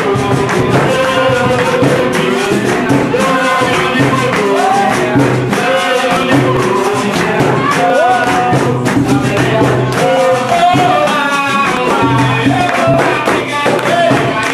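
Live capoeira roda music: voices singing a call-and-response song over jingling pandeiro and rattling percussion that keeps an even rhythm.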